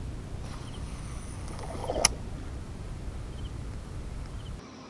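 Steady low wind rumble on the microphone, with one sharp click about two seconds in.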